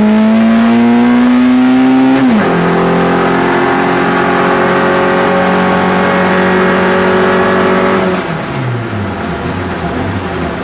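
Hill-climb race car engine at high revs, its pitch creeping up for about two seconds, then dropping sharply and holding steady. Near the end the revs fall away and the engine gets quieter.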